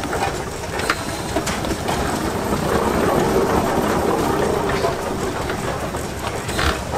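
Steam traction engine moving slowly under its own power, a steady mechanical clatter from its gearing and running gear with a few sharper knocks.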